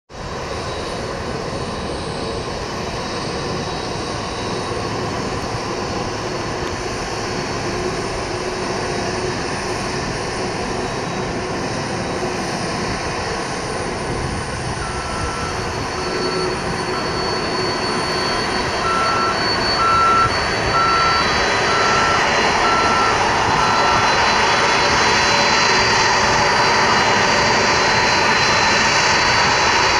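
Boeing 767-300ER's twin General Electric CF6 turbofans running at taxi power, a steady rush with a high whine, growing louder as the airliner taxis closer. A faint beep repeats about once a second in the middle.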